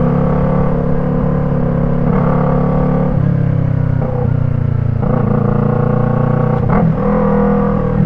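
Yamaha MT-03's parallel-twin engine running through an Arashi aftermarket exhaust with its dB killer fitted, under way on the road. The note holds steady for a second or two at a time and shifts abruptly as the throttle changes, with a brief sharp pop near the end.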